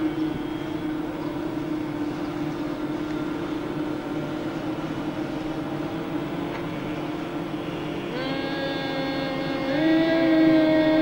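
A group of people humming together in bhramari (humming-bee) breath, with ears closed, which the instructor says builds alpha waves in the brain. A steady low hum holds, and more voices join on higher notes about eight seconds in and again near the end, where it grows louder.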